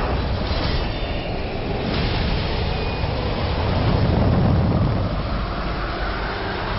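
Film sound effects of a large jet aircraft in a mid-air catastrophe: a dense, steady rush of wind and jet-engine rumble, with the low rumble swelling about four seconds in.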